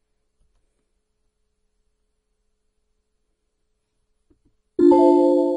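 Near silence, then near the end a computer alert chime sounds: a steady chord of several held tones that fades slowly. It is the CAD software's warning that the locked dimension can't be changed.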